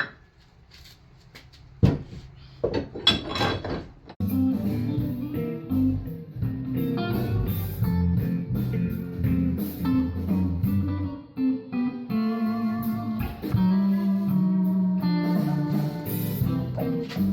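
Blues-style guitar music, starting about four seconds in and playing steadily after. Before it, a sharp knock about two seconds in and a short clatter.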